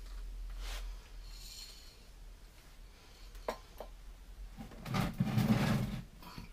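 A Land Rover 110 back door being shifted on a concrete garage floor: a couple of light clicks, then a rough scrape lasting about a second and a half, starting near the end.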